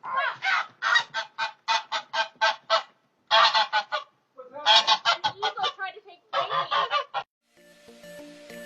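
Geese honking in rapid runs of short, harsh calls, broken into several bursts by abrupt gaps. Background music comes in near the end.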